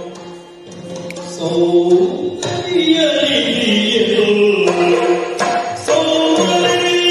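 Yakshagana bhagavata singing a Kannada song in a gliding, ornamented line over a steady drone, with a few sharp strokes from the maddale and chende drums. The singing starts soft and swells about two seconds in.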